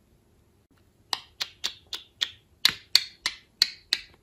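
Budgerigar making a quick run of about a dozen sharp clicks, roughly four a second, starting about a second in.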